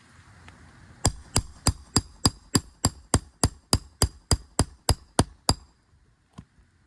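Roofing hammer striking a steel nail puller about sixteen times in a steady rhythm, roughly three blows a second, each with a high metallic ring, driving the puller under an asphalt shingle to reach and pull a roofing nail. The hammering stops about a second before the end.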